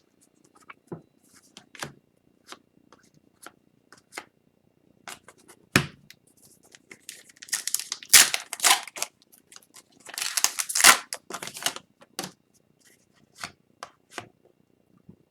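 Trading cards and their foil pack being handled by hand: scattered light clicks and snaps as cards are flipped and slid, with two longer crinkling stretches of the pack wrapper around the middle.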